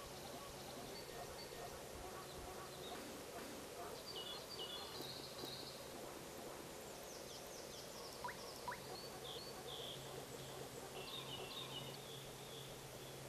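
Breeding chorus of male common frogs calling in a spawning pond: a dense, continuous mass of low croaks. Small birds chirp and sing over it, busier in the second half.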